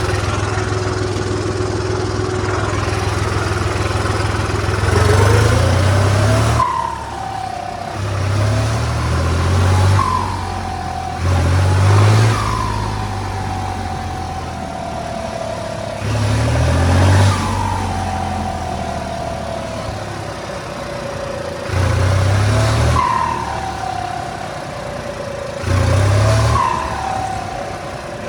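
Turbocharged car engine idling and revved about six times, the turbo whistling with each rev: a rising whine as it spools up, then a falling whistle as it winds down after the rev.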